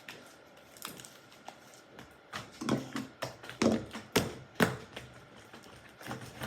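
Slime being kneaded and squished by hand, giving a string of sticky clicks and pops that is loudest in the middle.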